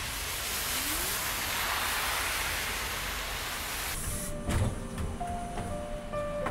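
Hiss of tyres on a rain-soaked road, swelling as a car passes over the wet tarmac. About four seconds in the hiss cuts off, a low thump follows, and soft music with held notes comes in.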